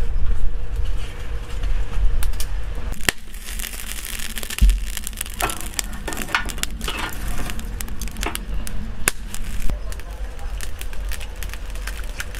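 Metal tongs poking and shifting burning charcoal lumps in a charcoal stove's firebox: scattered sharp clicks, knocks and crackles as the lumps scrape and knock together, over a steady low rumble.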